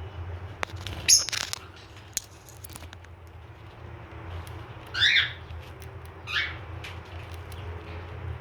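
Lutino cockatiel eating sunflower seeds, with scattered sharp clicks of the seeds being cracked, a loud brief high sound about a second in, and two short chirps past the middle, a second and a half apart, over a low steady hum.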